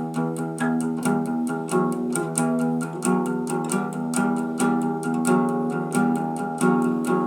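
Instrumental passage of a guitar song cover with no singing: sustained guitar chords over a steady beat of sharp strokes about three a second.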